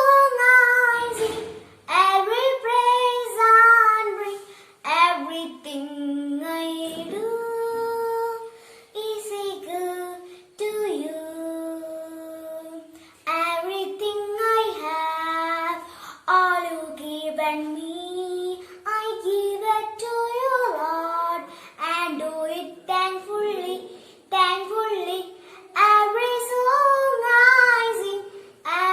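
A child singing a hymn alone, one voice in phrases with some long held notes.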